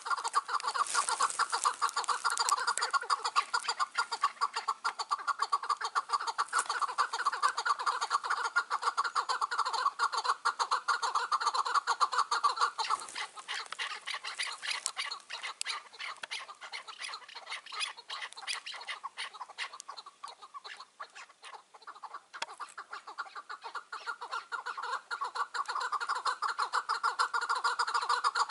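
Chukar partridges calling: a fast, continuous run of clucking notes, loud for the first dozen seconds, dying down through the middle and building again near the end.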